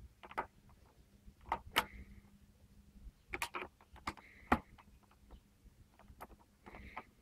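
Scattered light clicks and knocks, the loudest about four and a half seconds in, from a hand working the ignition key and controls of a 1969 MZ ES 125 motorcycle, its engine not running.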